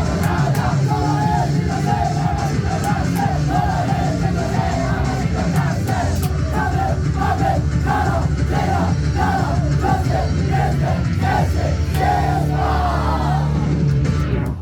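Rock music with a loud vocal line in short repeated syllables over a steady bass, cutting off right at the end.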